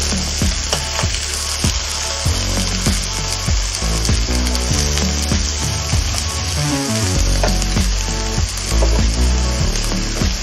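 Beef rib steak and sliced vegetables sizzling steadily on an electric contact grill, with metal tongs clicking now and then as the vegetables are moved.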